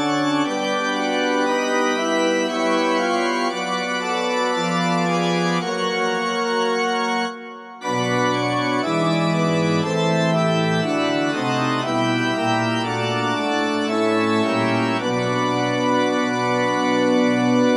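Background music of slow, held organ chords, changing every second or two, with no drums; it drops out briefly a little past seven seconds in.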